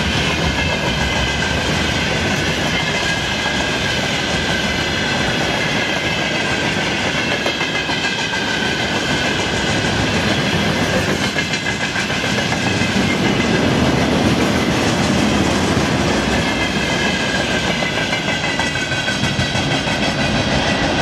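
Freight train wagons (tank containers and tank cars) rolling past: a steady rumble of steel wheels on rail with clickety-clack over the rail joints, and wavering high ringing tones above it.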